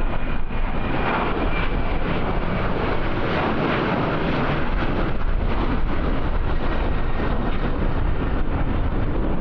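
Aircraft engine noise: a steady, loud rush with a faint high whine near the start, mixed with wind buffeting the microphone.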